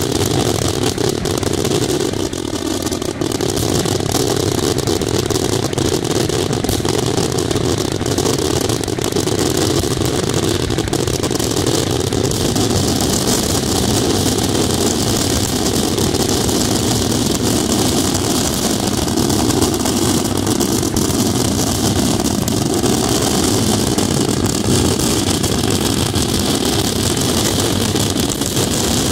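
Daytime fireworks barrage: rapid aerial shell bursts and crackling that merge into a continuous, unbroken rumble.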